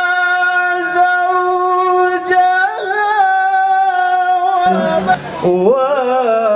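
A man chanting a Qur'an recitation in the melodic tilawah style into a microphone. He holds one long drawn-out note for about four and a half seconds, then drops lower into a wavering, ornamented phrase.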